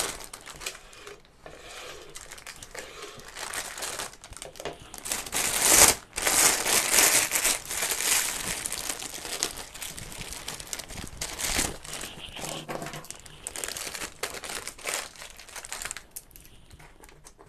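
Irregular crinkling and rustling of thin sheet material being handled, loudest in the middle and dying away near the end.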